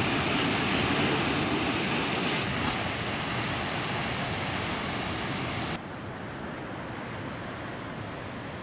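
Heavy surf breaking over boulders on a rocky shore: a steady rush of churning white water, with no distinct individual crashes. It drops in level twice, a little at about two and a half seconds in and more at about six seconds in.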